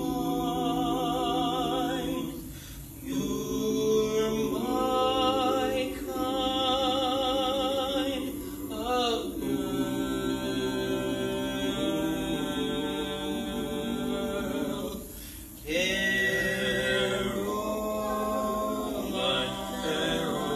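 Men's chorus singing a cappella, holding sustained chords in harmony with vibrato. The singing breaks off briefly twice, about three seconds in and again about three-quarters of the way through.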